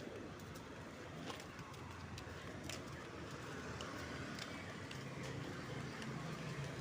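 Street traffic noise: a steady hum of vehicles with scattered faint clicks and knocks, the low hum growing a little stronger near the end.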